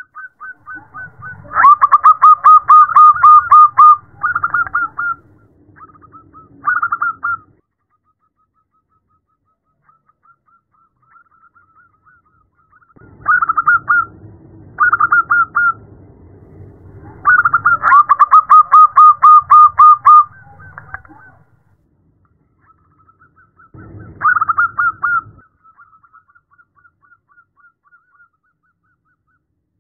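Zebra dove (perkutut) calling in phrases of rapid staccato coos at nearly one pitch. There are two long, loud trains, one early and one about midway, with shorter phrases between them and faint soft notes trailing off. The uploader presents it as a female calling a male, a lure call used to excite captive males.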